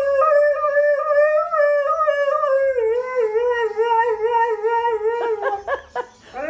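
Husky howling: one long, wavering howl that steps down in pitch about three seconds in, breaking into a few short rising and falling notes near the end.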